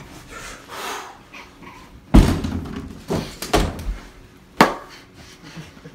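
A run of sharp bangs and thuds: four hard knocks over about two and a half seconds, the first the loudest, with softer rustling before them.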